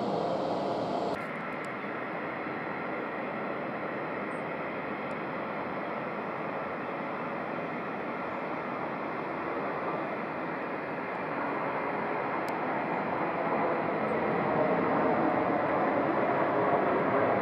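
Jet engine noise of an Airbus A220-300 landing and rolling out on the runway, a steady rushing sound that grows louder near the end.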